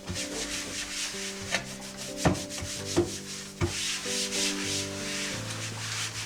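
Hands-on kitchen food preparation: repeated rough rubbing or scrubbing strokes, with four sharp taps through the middle. Soft background music with held notes plays underneath.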